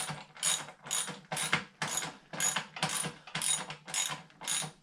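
Socket ratchet wrench clicking in quick, regular back-and-forth strokes, about two to three a second, as a bolt is tightened down.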